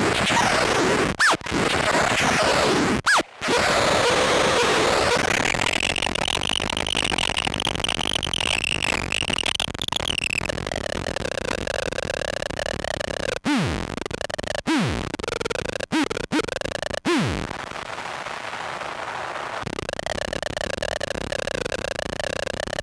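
Harsh feedback noise from a pedal chain of a feedback looper, a momentary stutter switch and a sub-octave synth fuzz: a dense, sputtering drone with wavering high tones that bend up and down. Several times it cuts out abruptly and comes back with a quick downward pitch swoop, glitching in short bursts near the middle.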